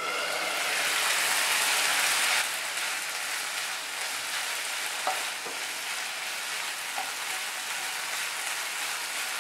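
Drumstick pieces in mustard-oil spice paste sizzling in a pan just uncovered after simmering. The sizzle is louder for the first two and a half seconds, then settles into a steady sizzle as a metal spatula stirs them, with a couple of light taps.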